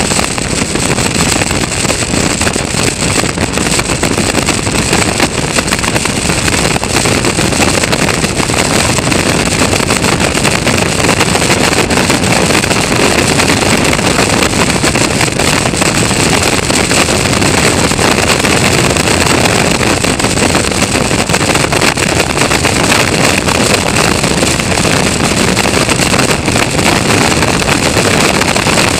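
Onboard sound of a Caterham Seven race car at speed: the engine running hard under heavy wind rush on the camera microphone, a steady, loud roar of noise.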